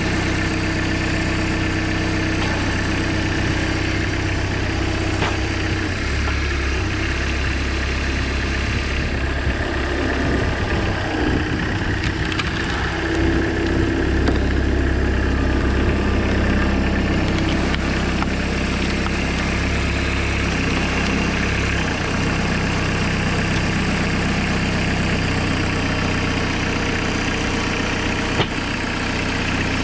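Homemade tractor's engine running steadily at idle, driving the hydraulic log splitter. For several seconds around the middle the engine note shifts and grows a little louder, and a single sharp knock sounds near the end.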